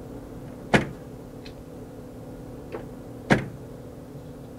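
Sharp plastic clicks from temporary printheads being pulled out of an HP Latex 110 printhead carriage: two loud clicks about two and a half seconds apart, with fainter ticks between them, over a steady low hum.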